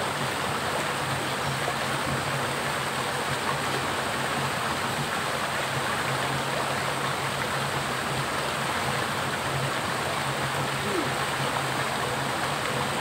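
Small stream running steadily over rocks into a pool.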